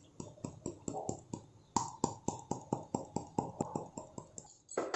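Quick, even tapping, about five light taps a second for some four seconds, like a spoon or small container knocked against a vessel to shake cinnamon powder into the pot.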